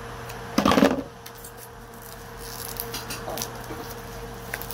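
Small objects handled on a tabletop: a short clattering rustle about a second in, then faint scattered clicks and rustles, over a low steady hum.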